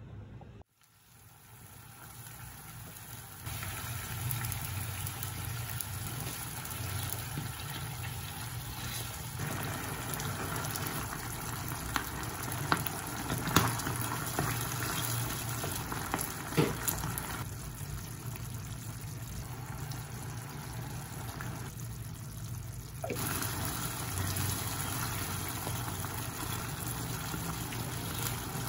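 Water running steadily in a kitchen, with a few sharp clinks in the middle and a louder stretch near the end.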